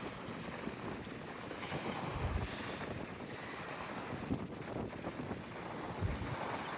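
Wind buffeting the microphone over a steady rush of sea water, with two low gusts thumping about two and six seconds in.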